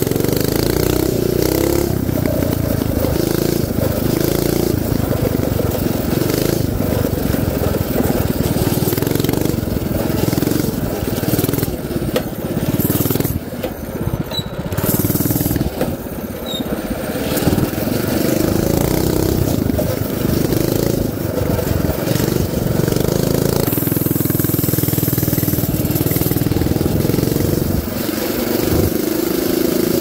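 Mini bike's small single-cylinder engine running under throttle while riding, its pitch rising and falling, easing off briefly about halfway through. Wind buffeting and bumps on the body-worn microphone.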